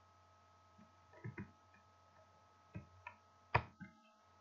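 A few faint, scattered computer keyboard keystrokes, the loudest about three and a half seconds in, over a faint steady hum.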